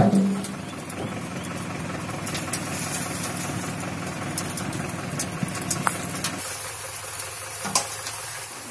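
Farm tractor engine running steadily while hauling a loaded trailer, with scattered clicks and rattles. About two-thirds of the way through, the deeper part of the engine note drops away.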